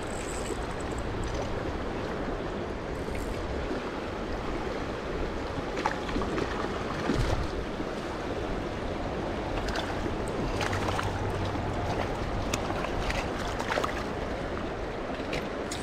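Shallow river current rushing steadily over rocks, with a few short clicks and knocks scattered through the middle.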